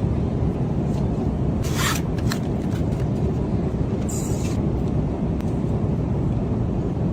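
Steady low rumble of an airliner cabin in flight, with a few brief rustling or scraping sounds about two seconds in and again about four seconds in.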